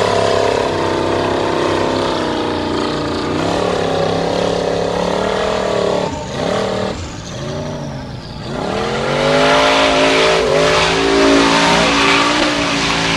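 Formula Offroad buggy's engine revving hard under load as it climbs a steep dirt hill. The revs sag and falter for a couple of seconds past the middle, then rise again and hold high toward the end.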